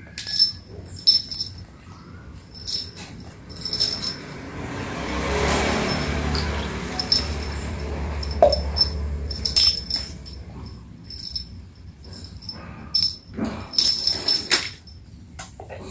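Close-up eating sounds: a child chewing with wet smacks and mouth clicks while picking up rice by hand, with the paper wrapper under the banana leaf crackling. A low rumbling hiss swells and fades in the middle.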